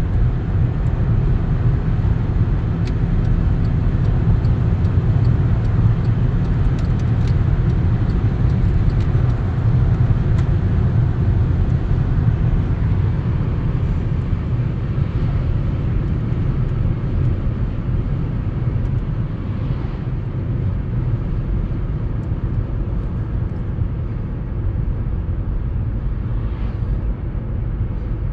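Volkswagen Passat B7 driving along: a steady low rumble of road and engine noise, easing slightly in the second half.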